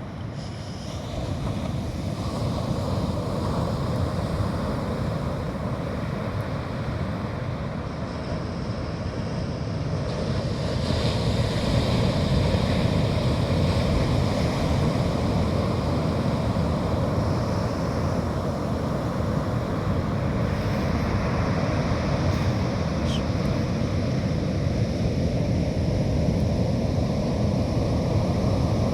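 Steady rush of sea surf with wind buffeting the microphone. It swells a little in loudness about a third of the way in.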